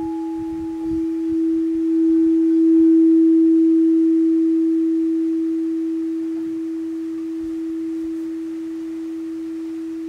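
Frosted quartz crystal singing bowl tuned for the solar plexus chakra, ringing in one pure steady tone after being struck. The tone swells with a slight pulsing over the first few seconds, then slowly fades.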